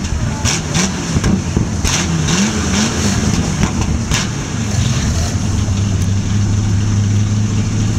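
Early-1960s Chevrolet pickup's engine revved up and down again and again, with several sharp exhaust pops, then settling to a steady idle about halfway through.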